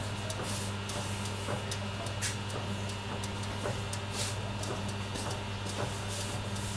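Baumkuchen oven running while a layer bakes on the turning spit: a steady low electrical hum with scattered soft ticks and crackles.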